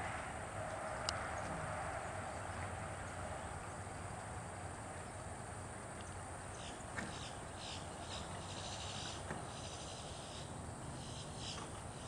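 Insects chirping in short repeated trills over a steady hiss, with a few sharp clicks now and then.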